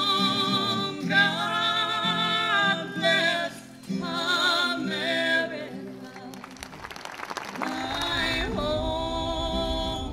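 Music: a singer holds long notes with wide vibrato over instrumental accompaniment. A rougher, noisier stretch comes about six seconds in before the held singing returns.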